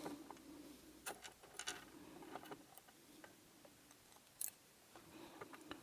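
Near silence broken by a few faint, sharp clicks and ticks of small lock pins and tools being handled as the key pins are set into a pin tumbler lock's plug, the sharpest about four and a half seconds in.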